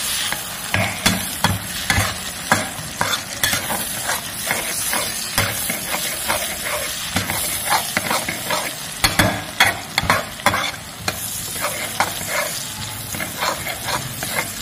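Metal spatula scraping and knocking against a metal wok, about two strokes a second, as sliced shallots, garlic, chilies and lemongrass are stir-fried in hot oil over a steady sizzle.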